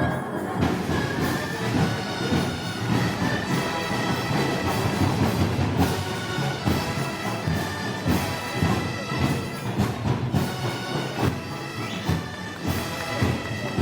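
Moros y Cristianos festival band music: sustained brass-and-wind chords over a slow, steady drum beat.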